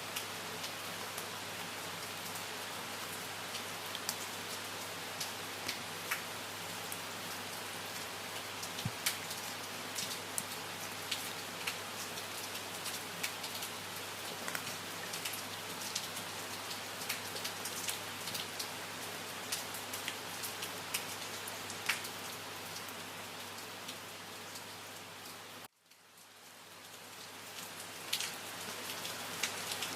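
Steady rain falling, with many distinct drops hitting nearby surfaces over an even hiss. About 26 seconds in, the rain cuts out suddenly and then fades back in over a couple of seconds.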